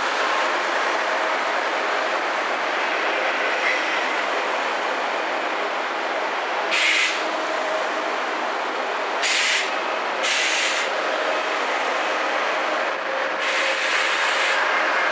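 Steady running noise of a double-traction ICE-T high-speed train standing at the platform between arrival and departure, with four short, sharp hisses of air.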